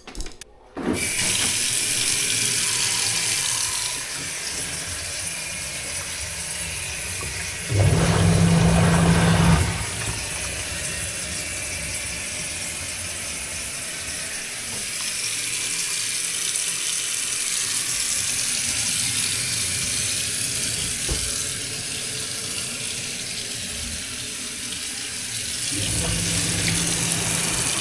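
Water running from a tap into a sink in a steady rush, with a louder spell and a low hum about eight seconds in and again near the end.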